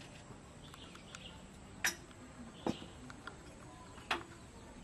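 A few scattered sharp metallic clicks and knocks, about three, from hands working on a stopped single-cylinder Dongfeng diesel engine and its belt drive; the engine is not running.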